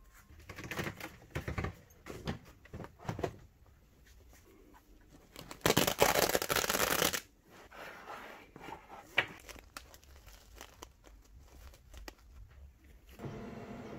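Hook-and-loop (Velcro) flap on a fabric laser enclosure ripped open in one loud tearing rip about a second and a half long, with fabric rustling and handling before and after it. Near the end a steady machine hum starts.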